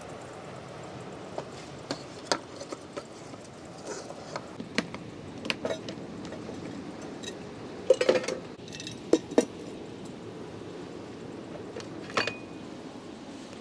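Kitchen gear being handled: a scatter of sharp clicks and small clinks of dishes, jars and utensils, the loudest cluster about two-thirds of the way in and one clink ringing briefly near the end, over a steady background rush.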